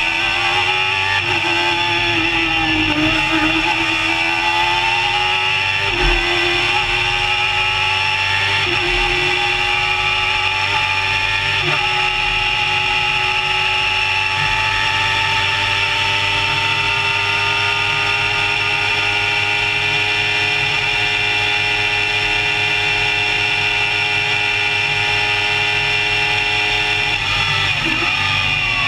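Barqueta Outeda MK1 hillclimb race car's engine at high revs under hard acceleration. Its pitch steps abruptly at each gear change several times in the first twelve seconds, then holds high and climbs slowly for a long stretch. Near the end the revs dip and come back up as the car shifts.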